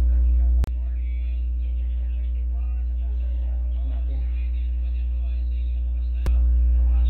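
Konzert 302 amplifier giving off a loud, steady mains hum. A sharp click comes about half a second in, and the hum drops a little. A second click comes near the end, and the hum rises back to full.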